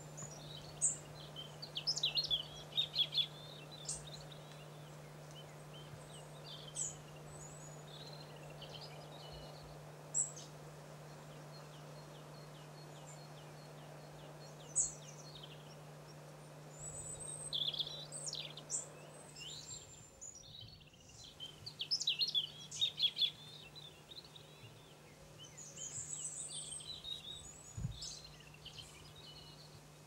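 Small songbirds calling with many short, high chirps, in bunches about two seconds in and again in the second half, over a faint low steady hum.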